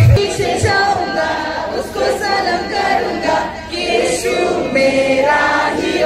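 A large crowd of young men and women singing together in chorus without accompaniment, many voices at once; the heavy bass of loudspeaker music stops right at the start.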